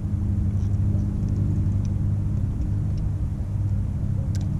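Boat motor running with a steady low hum, and a small click near the end.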